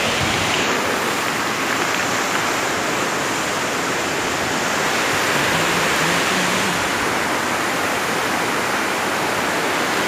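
Steady rush of a fast-flowing river running over stones and gravel, even and unbroken.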